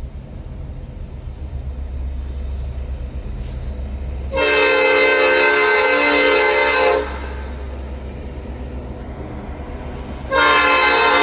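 Old cast Nathan P5 five-chime train horn sounding a long chord blast of about two and a half seconds, starting about four seconds in, then a second blast starting near the end. A low rumble from the train runs underneath.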